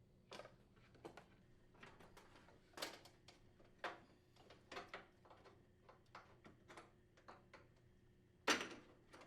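Scattered faint clicks and taps of plastic washer suspension rod support caps being twisted and pulled off, with a louder knock about eight and a half seconds in.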